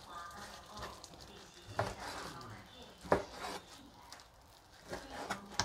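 Large kitchen knife chopping raw pork on a plastic cutting board: three sharp knocks of the blade hitting the board, the loudest about three seconds in, with soft rubbing of the meat between them.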